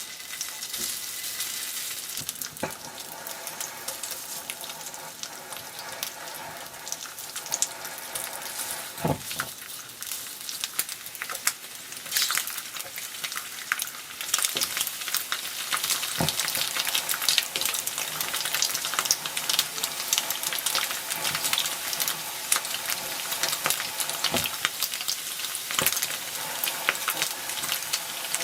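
Food frying in oil in a pan, with a steady crackling sizzle and a few sharp taps of a utensil against the pan.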